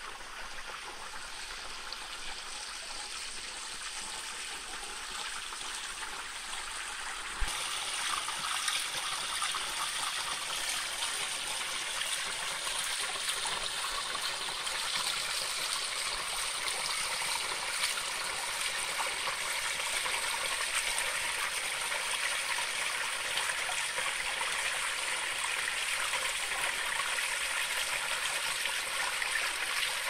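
Small mountain stream splashing and trickling over rocks and down a little cascade: a steady rushing that grows louder about seven seconds in.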